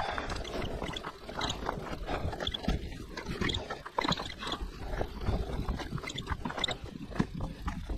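Road bike tyres rolling slowly over loose sand and gravel, with an irregular crackling crunch and small rattles from the bike.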